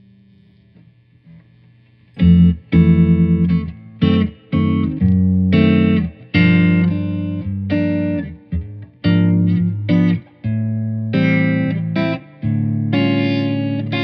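1987 G&L SC-3 electric guitar. After about two seconds of faint hum, it plays a run of loud chords and notes, each struck and left to ring briefly, with short breaks between them.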